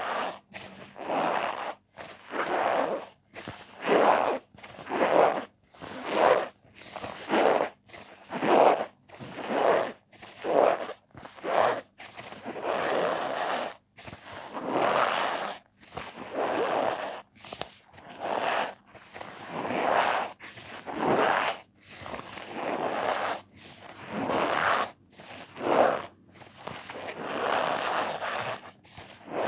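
Cornstarch powder squeezed and pressed over and over, each squeeze giving a squeaky crunch. The squeezes come about one or two a second, with short gaps between them, and several are drawn out longer from the middle on.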